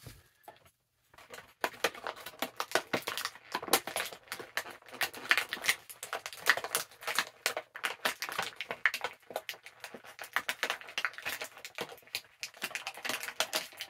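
Plastic packaging crinkling and rustling as it is handled, a dense run of irregular crackles and clicks starting about a second and a half in.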